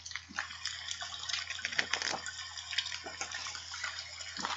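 Steady water sound, a trickling patter with small irregular drips like running water or rain, over a low electrical hum.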